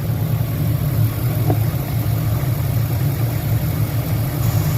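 2004 Lincoln Navigator's 5.4-litre V8 idling steadily while it warms up after a coolant hose replacement.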